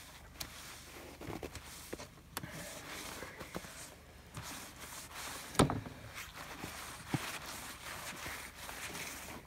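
Wet cloth rubbing and wiping over a steel chessboard plate, washing off the blackening finish to stop its reaction, with scattered light knocks and one sharp knock a little past halfway.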